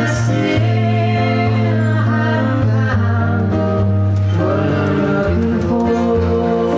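A live acoustic duo: a woman singing long held notes over an acoustic guitar.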